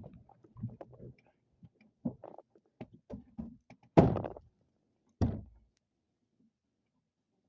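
Scattered light knocks and clatter, then two heavy thuds a little over a second apart, a door being shut.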